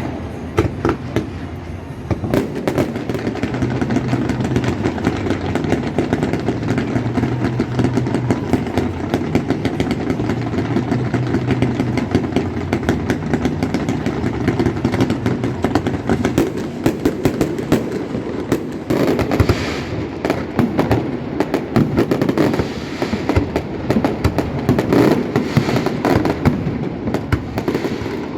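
Fireworks going off in dense, rapid crackling volleys that thicken twice in the second half, over a steady low hum.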